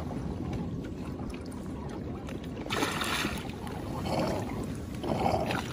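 Wind rumbling on the microphone over open-water ambience beside a kayak, with a short burst of hiss nearly three seconds in.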